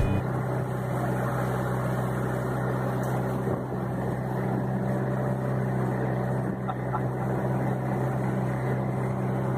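Engine of a wooden river passenger boat running steadily at cruising speed, a constant low drone heard from inside the open cabin, over a rushing noise.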